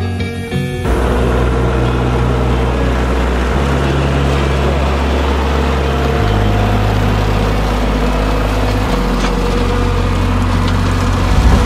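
LS MT240E compact tractor's diesel engine running under load while its PTO-driven rotary cutter (bush hog) mows tall grass, a steady dense mowing noise. Guitar music cuts off about a second in as the tractor sound takes over.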